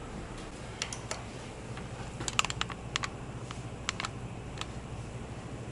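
Scattered light clicks, with a quick flurry about two and a half seconds in, over a low steady hum. The clicks are like keys being pressed on a computer keyboard.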